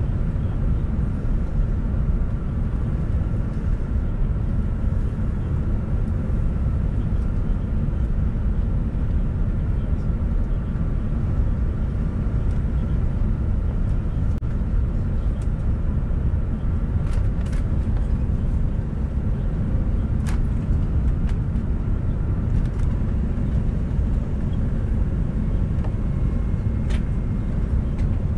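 Steady low rumble of an Airbus A380's engines and airflow heard inside the cabin on final approach, with a few faint clicks in the second half.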